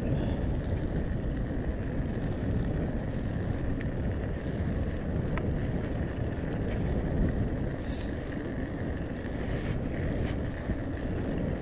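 Wind buffeting the microphone of a camera on a moving bicycle: a steady low rumble, with a few faint ticks and rattles from the bike.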